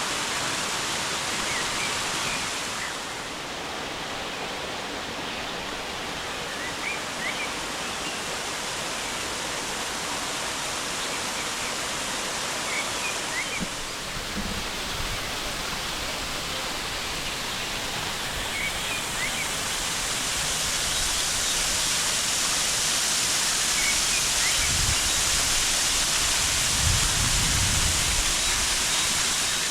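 Waterfall rushing, a steady wash of falling water that grows louder near the end, with faint short high chirps now and then and a few brief low rumbles.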